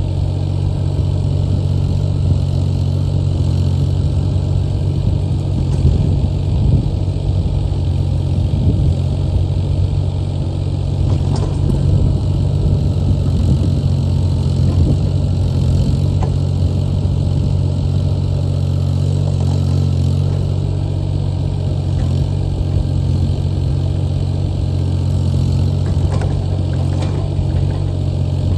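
Yanmar diesel engine of a Carter CT12BU 1.4-tonne mini excavator running steadily while the machine is worked, throttled back a little from full revs, with a few faint knocks.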